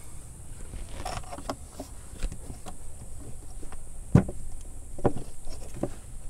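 Hands and a screwdriver knocking and clicking against a plastic air-filter housing while working at a mass airflow sensor screw: a handful of sharp knocks, the loudest about four seconds in.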